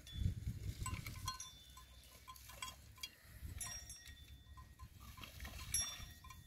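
Neck bells on water buffalo clinking now and then as the animals move, with short, high ringing tones over a low rumble.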